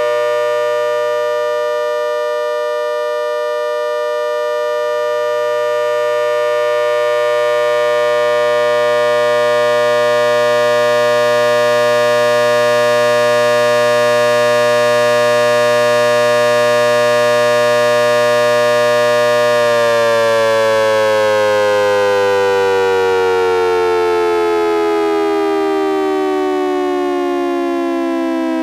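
ACA Hurricane H-130 MkII dual-tone siren running with its rotor turning backwards, holding a steady chord in which the 10-port side is dominant because it gets more air. About two-thirds of the way through it starts winding down, the whole chord falling in pitch.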